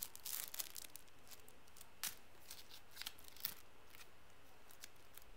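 Faint crinkling of a thin clear plastic sleeve holding a cleaning cloth, mostly in the first second, then a few scattered light ticks and taps as the items are handled and set down.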